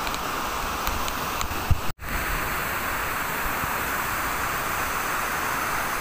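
Tall waterfall plunging onto rocks: a steady, even rush of falling water. About two seconds in there is a short bump, then the sound cuts out for an instant.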